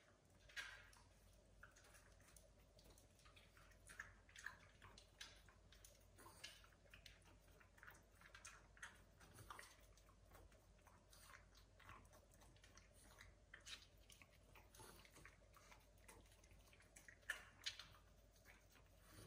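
A French bulldog eating small dry treats: faint, irregular crunching and chewing, with a couple of louder crunches near the end.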